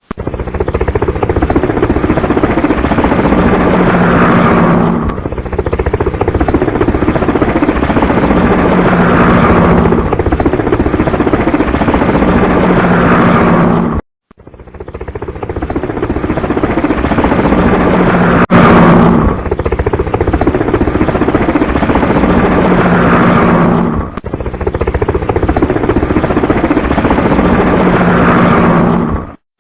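Toy helicopter making a loud, rapid rattling whir in a pattern that repeats about every five seconds, each time with a short low tone. It cuts out suddenly about halfway through and again just before the end, then starts again.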